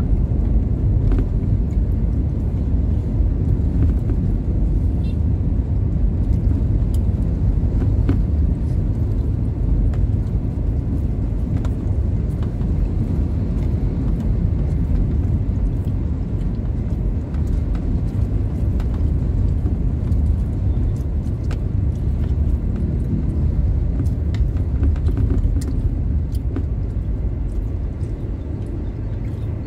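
Steady low rumble of road traffic on the move, with an empty car-carrier truck and motorcycles running close by.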